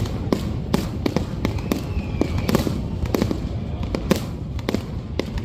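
Aerial fireworks bursting in an irregular barrage, several sharp bangs a second over a continuous low rumble.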